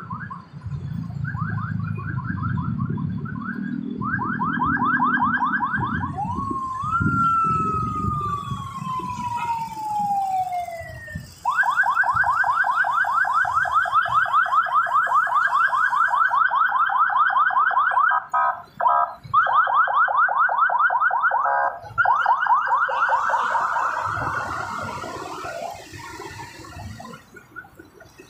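Electronic siren sounding over traffic. Stretches of a rapid warbling yelp are broken by one long wail that rises quickly and then falls slowly. A low rumble of traffic underneath fades out in the first third.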